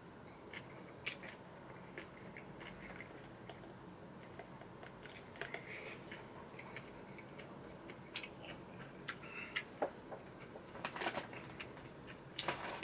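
Quiet chewing and mouth sounds of someone eating chewy jjolmyeon noodles, with scattered faint clicks and taps, a few louder ones near the end.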